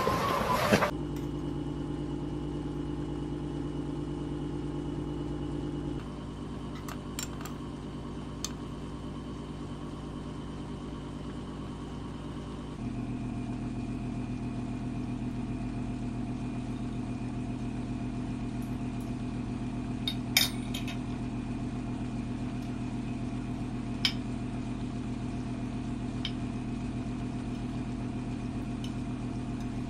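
A steady machine hum of several held tones, shifting in pitch about six seconds in and again about thirteen seconds in, with a few light clinks of dishes, the sharpest about twenty seconds in.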